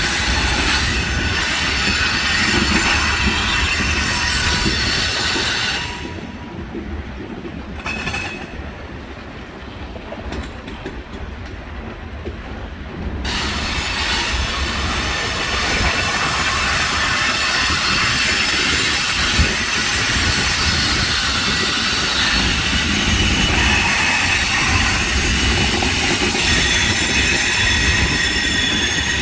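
Mixed freight train rolling past, wheels squealing in several high, steady tones over a steady rumble. About six seconds in, the squealing falls away and it goes quieter for roughly seven seconds, then the squeal returns and holds.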